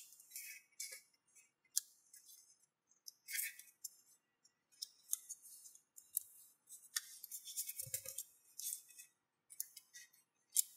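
Sheet of origami paper rustling and crinkling in irregular scratches and crackles as fingers fold and press creases into it, with a soft thump about eight seconds in.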